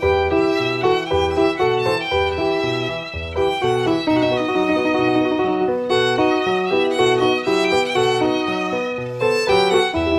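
Instrumental background music: a melody of quick, changing notes over a repeating low bass line.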